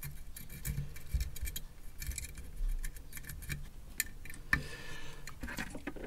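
Faint, scattered small clicks and taps of a soldering iron and hand tools working on a circuit board, with a short soft hiss about four and a half seconds in.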